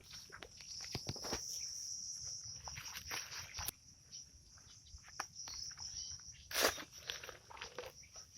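Insects buzzing in a steady high trill that stops suddenly about halfway in, with footsteps and scuffing in the soil, and one louder scuff about three-quarters of the way through.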